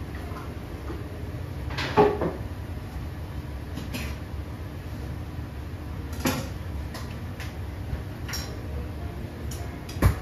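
Kitchen work clatter: about five sharp knocks and clacks of utensils or cookware, roughly two seconds apart, the loudest about two seconds in and another near the end, over a steady low hum.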